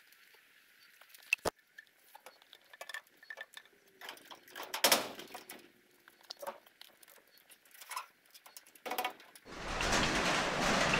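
Scattered light knocks and clicks of PVC pipe being handled and fitted on a ladder, one sharper knock about halfway through. About nine and a half seconds in, a loud steady rushing noise takes over.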